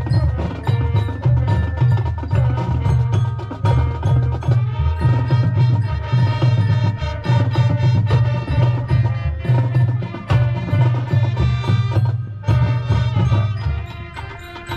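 High school marching band playing its field show: wind instruments with drumline and front-ensemble mallet percussion, steady strikes over a strong low pulse.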